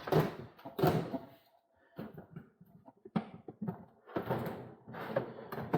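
Irregular knocks, clunks and scraping as things are handled and moved in a workshop, with a couple of louder bursts near the start and a cluster of sharp clicks in the middle.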